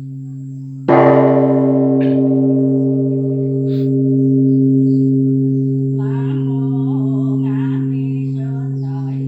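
A large Buddhist pagoda bell is struck once about a second in and rings on, its upper overtones fading over a few seconds while a deep steady hum carries through. A faint chanting voice comes in near the end.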